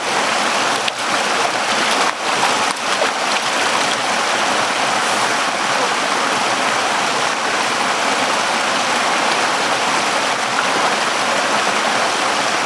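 Valley stream rushing steadily, with a few light knocks in the first three seconds.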